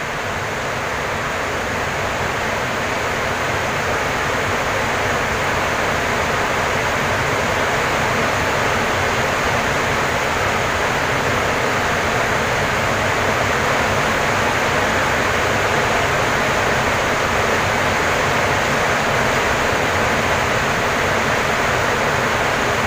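Heavy rain, a loud, steady hiss with no let-up.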